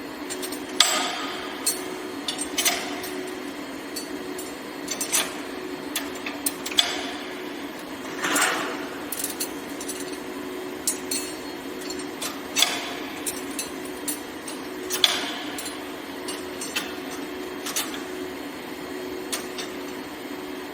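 Rebar cage welding machinery running: a steady hum with irregular sharp metallic clanks and clicks, some ringing briefly, well over a dozen of them.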